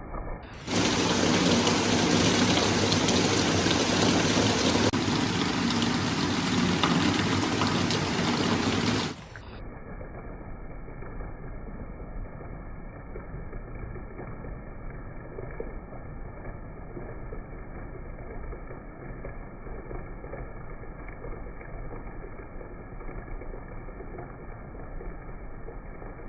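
Heavy rain falling as a steady hiss. About a second in, a much louder, brighter downpour cuts in, then drops off suddenly after about eight seconds to quieter, duller rain.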